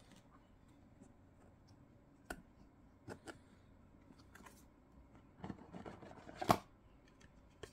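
A box and its packaging being handled: scattered taps, clicks and short rustles. The loudest is a sharp knock about six and a half seconds in.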